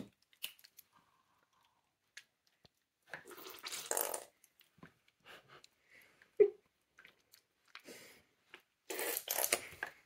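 Hands squelching and squishing a wet, sticky mix of paint and glue in a glass dish. It comes in separate bursts, a longer one a few seconds in and another near the end, with a few short wet pops between.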